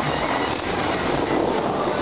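Steady rushing of the Dubai Fountain's water jets, spray shooting high and falling back into the lake, with the show's music faintly underneath.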